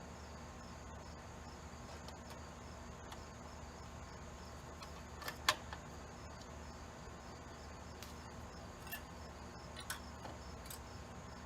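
Sparse light clicks and taps from loosening and releasing the scroll saw's blade, with one sharper click about halfway through, over a steady low hum and a faint, regular high chirping.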